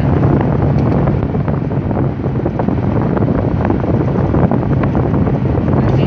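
Road and wind noise inside a moving car at speed: a steady rush with a low drone underneath.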